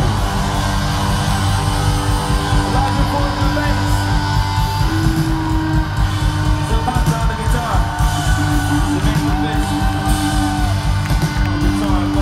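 Live rock band playing loud through a concert PA, recorded from the crowd, with long held notes and a few bending notes over a dense bass and drum backing.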